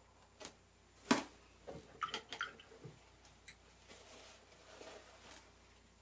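Watercolor brush and palette handling: a sharp tap about a second in, a quick run of small clicks and taps around two seconds, then softer wet dabbing sounds.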